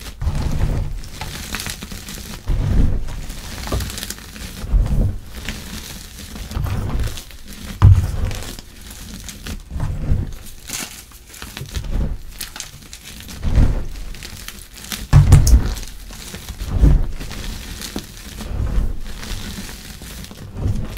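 Chalk blocks mixed with charcoal and glitter being crushed and crumbled by hand in a bowl: gritty crunching and crumbling in repeated squeezes about every two seconds, each with a soft low thud.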